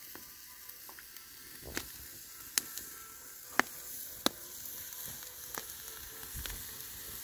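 Moose-meat skewers sizzling on a steel grill grate over a wood fire: a steady sizzle with a sharp crackle or pop every second or so.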